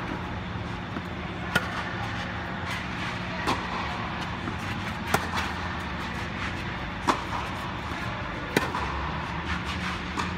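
Tennis rally: five sharp racket-on-ball strikes come about every one and a half to two seconds as the two players hit in turn. Under them runs a steady low hum from the air dome's blowers.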